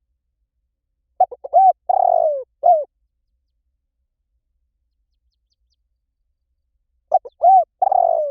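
A bird calling: two phrases of a few short, low, arched notes, about six seconds apart.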